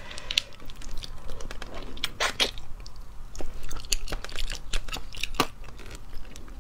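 Close-miked eating of small cooked sea snails: wet chewing and mouth sounds with irregular sharp clicks of shells being handled and the meat picked out with a toothpick, two of the clicks louder than the rest.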